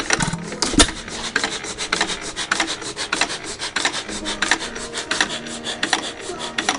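A 3 hp Ideal hit-and-miss engine with igniter ignition, running: a rapid, even clatter from its moving parts and valve gear. One louder bang just under a second in is a firing stroke.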